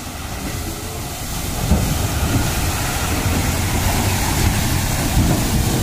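Heavy dump truck driving past close by through mud, its engine running with a steady, noisy rumble that grows louder over the first second or two and then holds.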